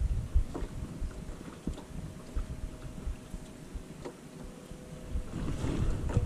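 Wind buffeting the microphone on a small boat at sea, easing in the middle and gusting up again near the end, with a faint steady hum underneath.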